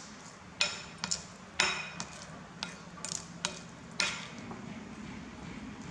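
A spatula stirring a minced mixture in a ceramic bowl, knocking against the bowl in a run of about nine sharp, ringing clinks over the first four seconds, then a softer scraping stir.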